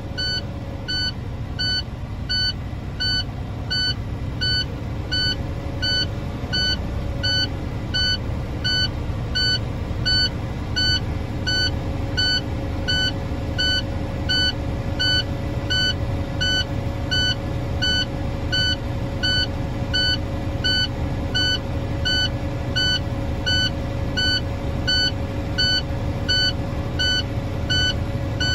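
Truck diesel engine held at a fast idle of about 1,200 rpm to build air-brake pressure up to the governor cut-out, with a steady whine over the rumble. An in-cab warning beeper sounds about twice a second throughout.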